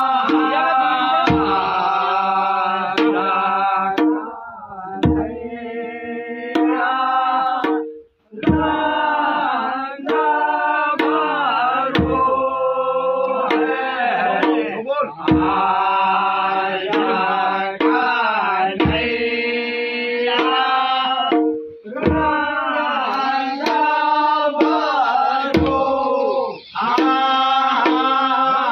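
Men singing a Kumaoni Holi song together, with a barrel drum (dhol) struck in a slow beat. The song pauses briefly twice between lines.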